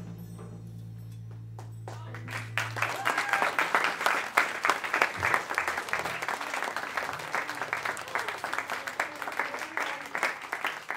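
A low timpani note rings on and fades, then cuts off about three seconds in. Applause starts just before that and continues for the rest, many quick claps.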